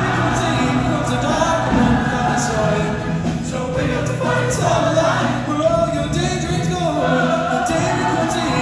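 Show choir singing with instrumental backing music.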